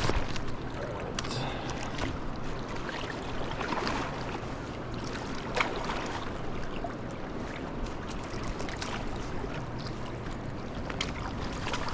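Steady rush of moving river water with some wind, broken by a few short splashes and knocks.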